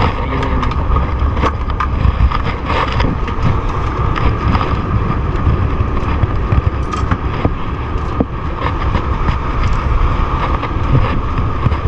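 Steady low rumble of a boat's engine running, with wind buffeting the microphone and scattered knocks and clicks from handling gear on the deck.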